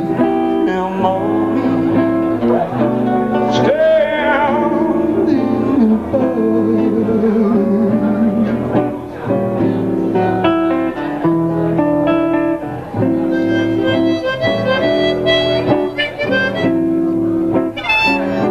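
Live acoustic band playing an instrumental passage: a harmonica plays a solo with wavering, bent notes over guitars and acoustic bass.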